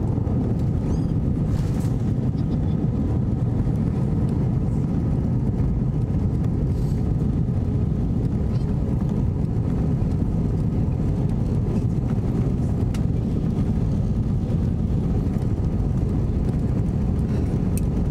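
Steady low rumble of cabin noise inside an Airbus A321-200 airliner, even in level throughout, with a few faint ticks.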